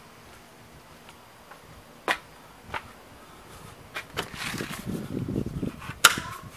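A front door being unlatched and opened: a few sharp clicks and knocks, a rustling of the handle and door, then a loud sharp latch click near the end.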